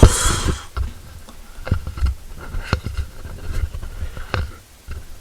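Handling noise picked up by a close microphone: a short hiss at the start, then scattered soft clicks and taps over a steady low hum.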